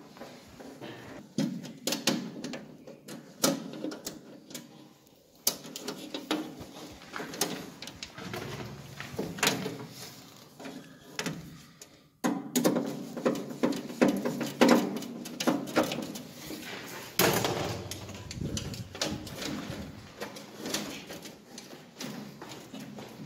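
Irregular clicks, knocks and clatter of hand work inside an electrical distribution panel: tools, wires and panel parts being handled and terminal screws on an earth bar being driven with a screwdriver.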